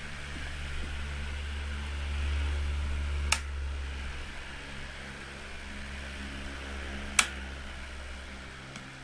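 CUQOO 16-inch pedestal floor fan running: a steady motor hum under an even rush of air. Two sharp clicks cut in, about a third of the way in and again about three-quarters in.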